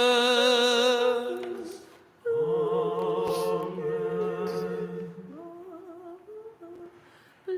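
Unaccompanied liturgical chant. A single voice holds the last syllable of "ages of ages", then after a brief pause a few voices sing a drawn-out "Amen" in harmony, moving to a new chord about halfway through and fading out near the end.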